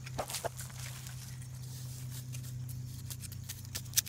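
Scattered small scratching and clicking sounds of hands digging in loose dirt and dry leaf litter, with a sharp knock near the end from the phone camera being handled, all over a low steady hum.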